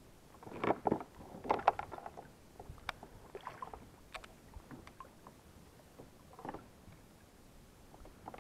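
Irregular splashes and knocks around a plastic fishing kayak as a hooked yellow peacock bass thrashes at the surface beside the hull. The sounds are loudest in the first two seconds, with a few sharp clicks and smaller splashes after.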